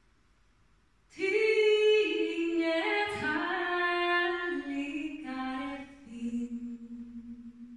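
A woman singing unaccompanied, starting about a second in. It is one phrase whose notes step downward and end on a long held low note that fades away.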